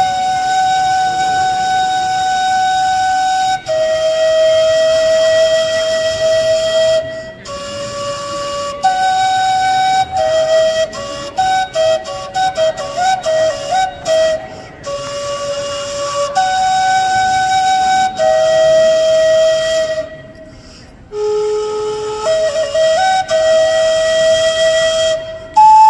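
A handmade high-pitched flute playing a melody that mimics birdsong: long held breathy notes, a run of quick trilling notes in the middle, and short pauses between phrases.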